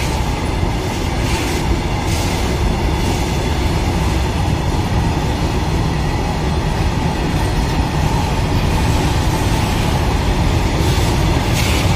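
Coal-loaded BOBRN hopper wagons of a freight train rolling past close by: a steady, heavy rumble and clatter of steel wheels on the rails. Brief bursts of higher-pitched hiss or screech come about a second and a half in, again about a second later, and near the end.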